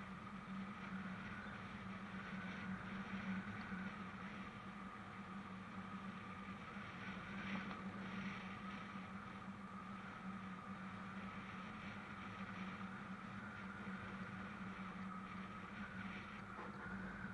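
Royal Enfield 500 Classic's single-cylinder engine running steadily at cruising speed, an even hum with no change in pitch.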